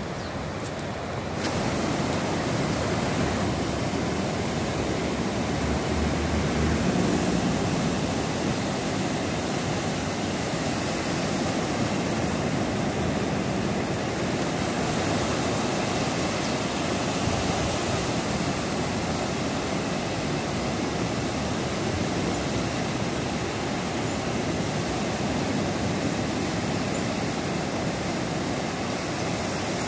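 Ocean surf breaking and washing up a beach, a continuous rushing noise that grows louder about a second and a half in and then holds steady.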